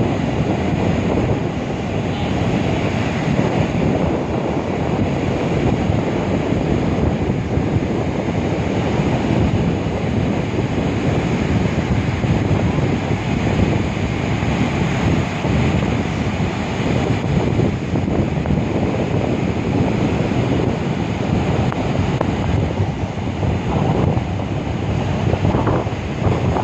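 Sea surf washing onto a beach in a continuous, steady rush, with wind buffeting the microphone.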